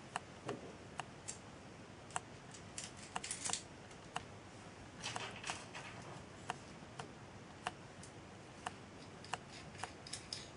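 Light, irregular clicks and taps of small metal parts knocking together: filing buttons being handled and fitted over a threaded stud on a brass rod end.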